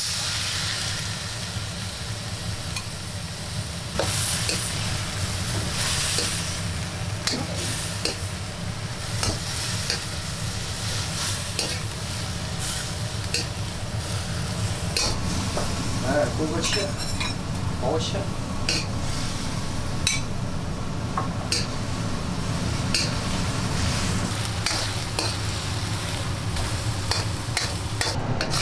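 Pork kidney slices and vegetables sizzling in a wok in their sauce while a metal spatula stirs and tosses them, scraping and clacking against the wok many times, over a steady low hum.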